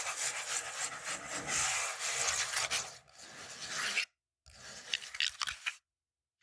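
Fingernails scratching fast over a textured surface, a dense rasping run of quick strokes. About four seconds in it cuts to silence, then comes a shorter bout of scratching with sharper clicks before stopping again.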